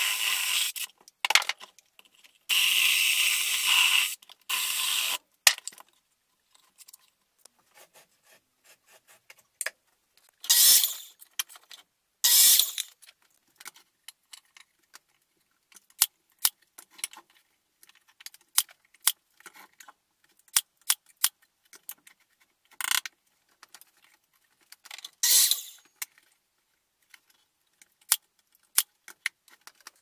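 Ryobi cordless chainsaw cutting into a log in short bursts over the first five seconds. After that come scattered clicks and knocks of tools being handled, and a few half-second bursts of a cordless drill driving screws.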